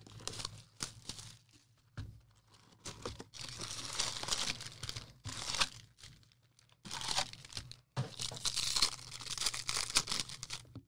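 Plastic wrapping on a box of baseball card packs being torn open and crinkled, in a string of short rustling tears with brief pauses between them.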